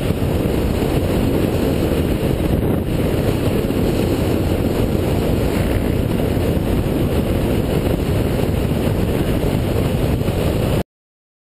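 Steady wind rush and motorcycle engine and road noise from a camera mounted on a bike riding at road speed. The sound cuts off suddenly near the end.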